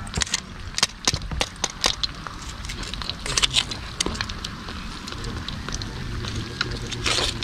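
Pork hocks deep-frying in hot oil in a wok, crackling and spattering in many short, irregular pops over a light sizzle.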